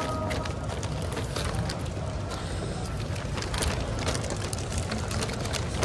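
Steady murmur of a large crowd in a big reverberant hall, with close-up rustling of plastic bags and small clicks and clatter of food packets and cups.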